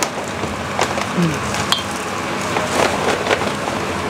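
Scattered light clicks and rustles of dried herb slices being dropped into a large steel bowl of powdered ginger mix, over steady background noise.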